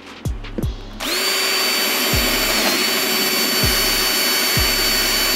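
Makita HP331D cordless hammer driver-drill starting about a second in and running at a steady high-pitched whine, with a brief dip in speed partway through, then stopping abruptly at the end. A trap beat's falling bass notes play underneath.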